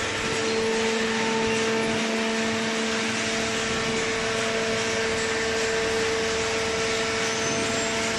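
Hydraulic paper baler's motor and pump running with a steady hum over an even hiss.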